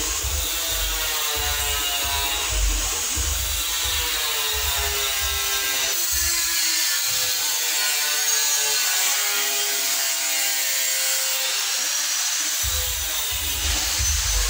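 A motor running steadily with a buzzing hum whose pitch drifts slowly up and down, under a low rumble that comes and goes and drops out for several seconds in the middle.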